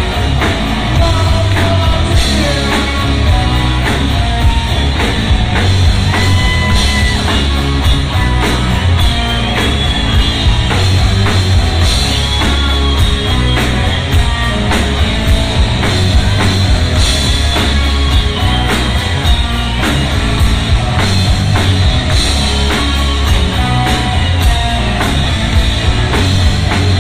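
A heavy metal band playing live at full volume: drum kit, bass and electric guitars, recorded on a handheld camera's microphone in the crowd.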